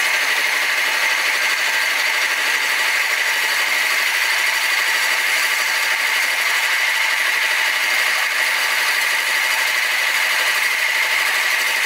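Benchtop milling machine slitting fins into a D16T aluminium bar with a large disc cutter at low spindle speed: a steady, loud cutting noise with a high ring that cuts off suddenly near the end. By the owner's account, this heavy low-speed cut with a large cutter is what burned out the mill's motor winding.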